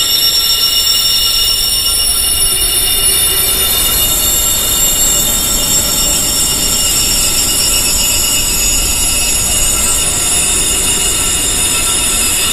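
Wind chimes tuned high for tinnitus sound therapy, many ringing tones overlapping and held in a continuous shimmer with no single strike standing out. A soft steady noise bed lies beneath.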